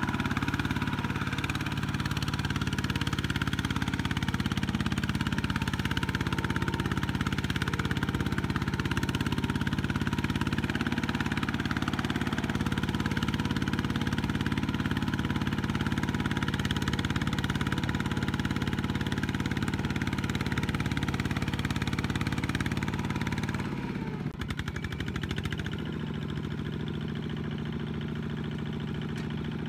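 Single-cylinder diesel engine of a two-wheel walking tractor running steadily under load as it drags a loaded trailer through mud. Near the end the engine note falls and it settles into a lower, quieter run.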